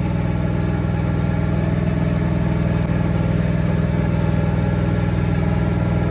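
An engine idling steadily, a low, even hum with a fast regular pulse.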